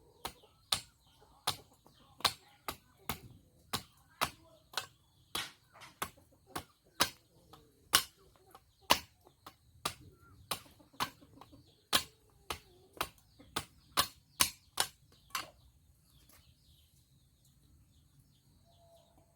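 A run of sharp knocks from a hand tool striking, irregular at about one to two a second, stopping about 15 seconds in.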